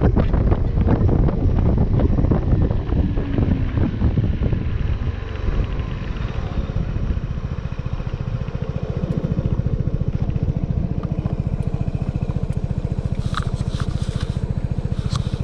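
Suzuki Burgman 200 scooter's single-cylinder engine running while riding, under heavy wind rush on the microphone. The wind dies away after about six seconds as the scooter slows, leaving the engine's steady, even pulsing.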